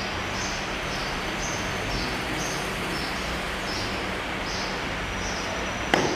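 Steady background noise with a short high chirp repeating about twice a second, alternating between two pitches. A single sharp slap near the end stands out as the loudest sound.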